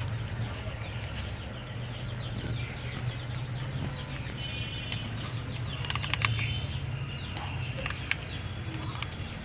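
Birds chirping in many short, quick falling notes over a steady low hum, with a few sharp clicks about six and eight seconds in.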